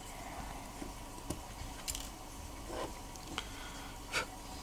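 A few faint, scattered clicks and taps of watchmaker's tweezers and small steel watch parts being picked up and set down on the bench mat, the clearest about four seconds in.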